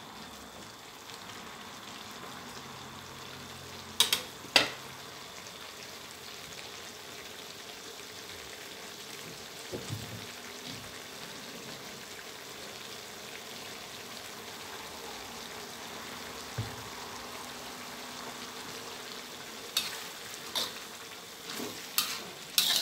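A stir-fry of pig-face meat and mixed vegetables sizzling steadily in a metal wok. A metal spatula clanks against the wok twice about four seconds in and several times near the end as the food is stirred.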